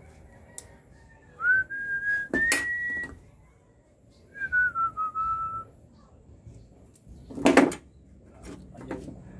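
A person whistling two short phrases of held notes, with small steps up and down in pitch. A sharp knock cuts in during the first phrase, and a louder knock about seven and a half seconds in is the loudest sound, with a lighter one near the end.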